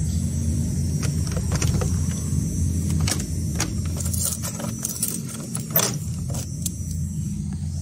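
Metallic clicks and jangling at a door's lever handle and lock as it is worked, the loudest click near the end, over the steady low hum of electric fans running.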